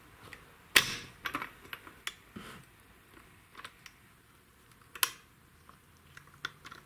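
Irregular sharp metallic clicks and clinks from a steel clutch spring being stretched with a hooked spring tool on a chainsaw's centrifugal clutch. The loudest click comes about a second in and another near five seconds, with smaller clicks between.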